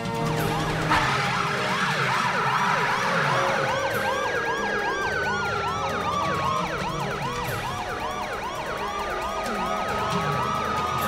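Several police car sirens sounding at once: a fast yelp cycling about four to five times a second, overlaid with slower wails that rise and fall over a few seconds.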